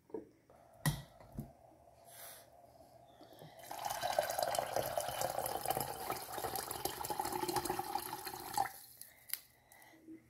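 A couple of light knocks, then water poured in a steady stream into a stainless steel pot of pigeon peas for about five seconds, stopping shortly before the end.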